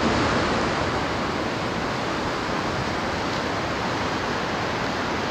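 Whitewater river rapids rushing: a steady, even wash of moving water.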